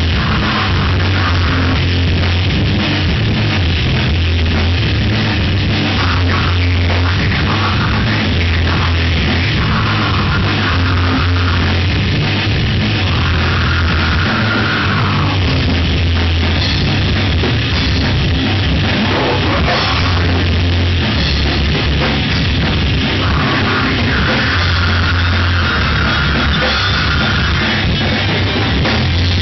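Heavy metal band playing a loud, dense practice: distorted electric guitars and bass over a drum kit, with the riffs changing every few seconds.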